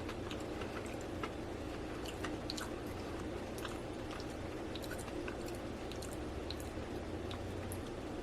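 A person chewing a mouthful of soft chocolate cupcake with marshmallow filling and icing, with scattered small wet mouth clicks over a steady low hum.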